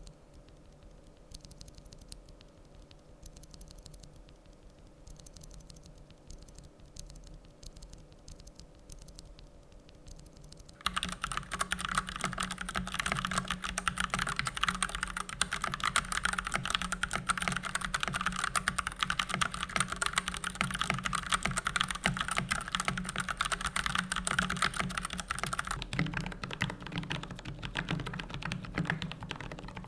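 Typing on a mechanical keyboard. For about the first ten seconds there are only faint, scattered key clicks. From about eleven seconds in comes fast, continuous typing, much louder, a dense clatter of key presses.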